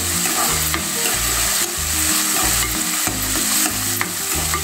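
Split moong dal and chopped onion sizzling in hot oil in a pressure pan, stirred and scraped around the pan with a spatula. This is the dal being roasted in the oil until it smells fragrant.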